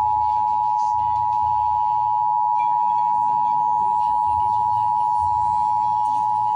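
Emergency Alert System attention signal: a steady two-tone alarm of 853 and 960 Hz, sounded for an EAS Required Monthly Test. The tone holds unchanged and cuts off suddenly at the very end.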